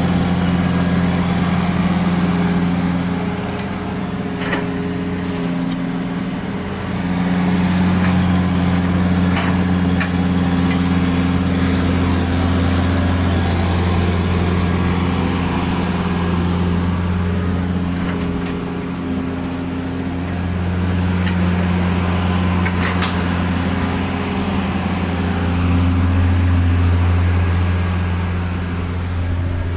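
Diesel engine of a long-arm Hitachi excavator running steadily while loading, its hum swelling and easing every few seconds as the hydraulics take up load, with a few faint knocks.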